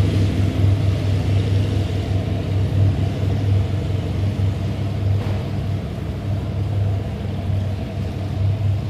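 Steady low mechanical hum and rumble, fading slightly later on.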